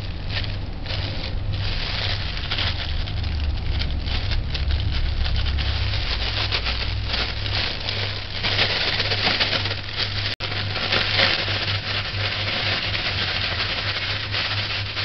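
Thin plastic bag crinkling and rustling continuously as hands squeeze and knead a butter-and-nut crumb topping inside it, over a steady low hum.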